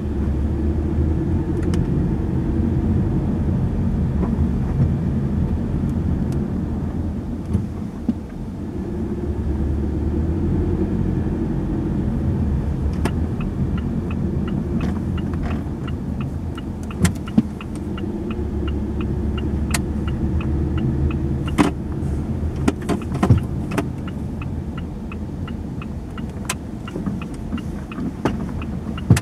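Steady engine and tyre rumble heard from inside a car driving slowly. From about halfway through, a turn-signal indicator ticks evenly at about two ticks a second, with a few sharp knocks in the second half.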